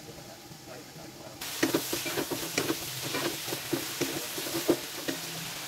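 Cut green beans and ground pork sizzling in a nonstick wok while a spatula stirs them, with irregular scrapes and taps of the spatula against the pan. The stirring starts suddenly about a second and a half in.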